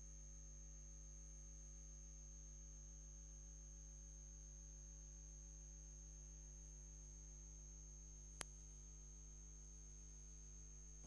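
Near silence: a steady electrical mains hum with a faint high-pitched whine, broken by a single click about eight seconds in.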